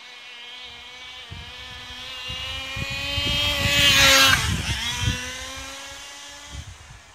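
Tamiya Raikiri 1/10 nitro RC car's small engine screaming at high revs as the car speeds past. It grows louder to a peak about four seconds in, drops in pitch as it goes by, then fades away.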